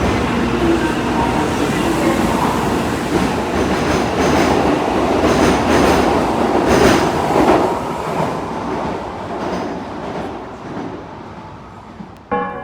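A train running on rails, its noise swelling to a peak a little past halfway and then fading away.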